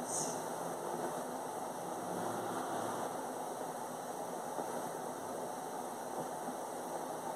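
Steady background noise with no voices or music, with a short high hiss right at the start.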